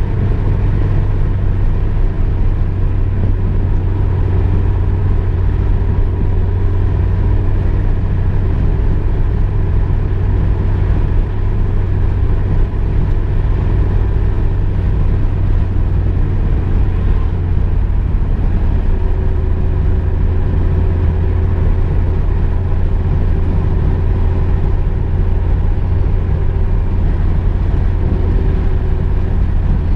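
A car driving at a steady speed: a steady low rumble of engine and road noise, with a faint higher hum joining about two-thirds of the way in.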